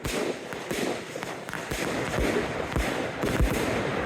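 Fireworks going off in quick succession, a low boom or sharp bang roughly every half second, over a continuous crackling haze.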